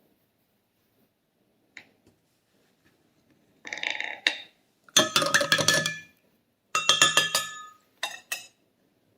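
A metal utensil clinking and scraping against dishes in four short rattling bursts, with brief ringing tones: a knife, warmed in hot water, being used to cut and lift a slice of caramel-iced cake.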